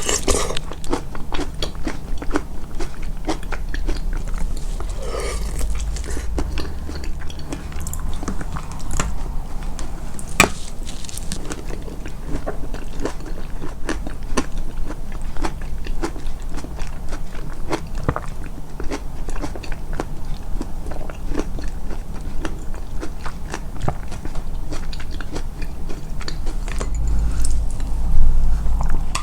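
Close-miked, amplified chewing and biting of food: a steady run of many short mouth clicks, with a louder low thump near the end.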